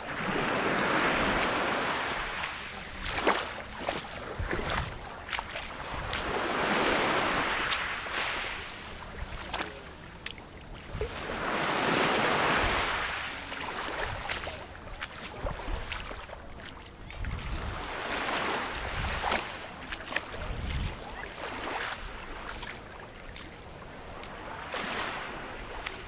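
Small waves breaking and washing up a pebble shore, each wash swelling and fading over a few seconds, the loudest three in the first half, with scattered small clicks through it.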